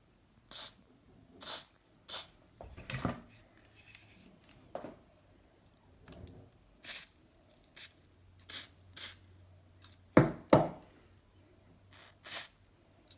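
Hoppe's 9 lubricating oil aerosol spraying through its red extension straw into an old pellet gun's action in short hissing squirts, about nine in all. A few louder knocks come between them, the loudest two close together about three quarters of the way through.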